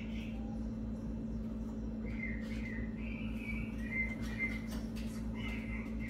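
Chopi blackbird (pássaro-preto) giving a run of short chirping notes from about two seconds in, over a steady low hum.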